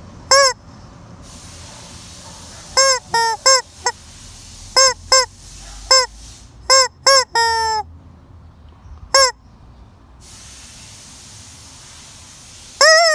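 A chicken giving about a dozen short, loud, honking squawks. The squawks come singly at first, then in a quick run, with one longer, falling call in the middle.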